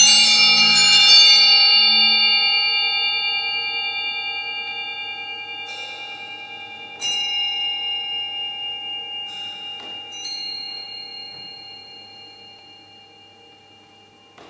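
Bell-like metal percussion in a slow, sparse passage: a cluster of strikes at the start, then single strokes about six, seven, nine and ten seconds in, each left to ring and die away slowly.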